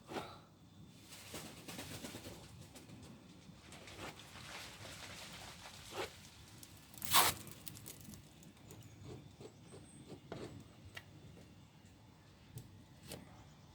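Plastic spreader scraping and smoothing two-part body filler, in irregular strokes, with one sharp knock about seven seconds in.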